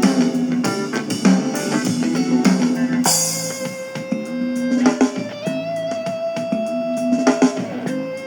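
Music played through a Soundcore Pyro Mini Bluetooth speaker in a sound test: a guitar-led track with drums, the drums dropping back about three seconds in while held guitar notes ring on.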